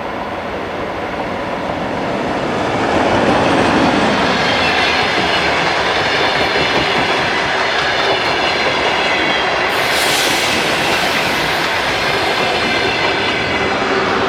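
DR1A diesel multiple unit running on the line, growing louder over the first three seconds and then holding steady, with a steady high whine of several tones. A short burst of hiss comes about ten seconds in.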